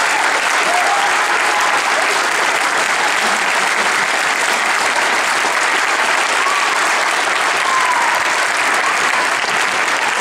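Audience applauding steadily, an unbroken round of clapping.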